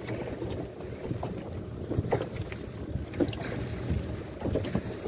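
Small boat's 15 hp outboard motor running steadily underway, mixed with wind buffeting the microphone and water rushing past the hull, with a few faint short knocks.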